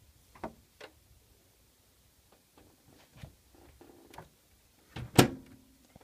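Microwave oven door shutting: a few light clicks and knocks, then a sharp latching slam about five seconds in with a brief ring after it.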